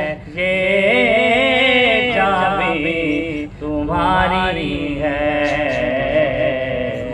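A man singing an Urdu naat unaccompanied, drawing out long wavering notes in a slow chant-like melody, with a short pause for breath about halfway through. A low steady hum runs underneath.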